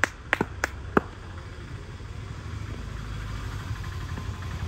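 Hand claps, about three a second, during the first second, then a low rumble that slowly grows louder.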